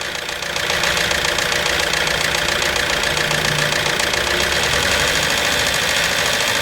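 Hyundai Santa Fe petrol engine running with a fast, even metallic clatter; the level rises slightly about half a second in. The mechanic takes the noise for the timing chain and VVT gear rather than the pistons, caused by oil thickened to sludge that no longer reaches the top of the engine.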